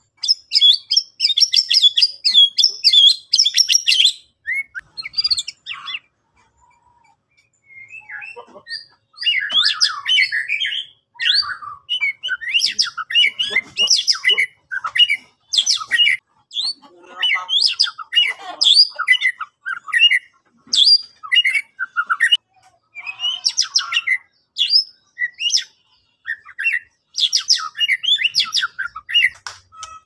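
White-rumped shama (murai batu) singing loudly in rapid, varied phrases of whistles and harsh chattering notes, with a pause of about two seconds about six seconds in.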